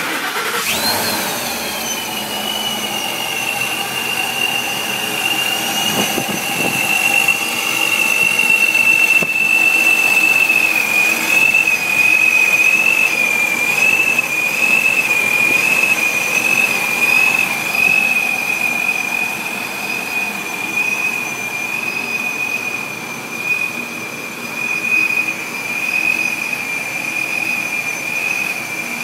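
Ford Raptor V8 with a ProCharger centrifugal supercharger running, the supercharger giving a loud, high, steady whine over the engine. The whine climbs sharply in the first second, then settles to a steady pitch, wavering slightly for a few seconds midway.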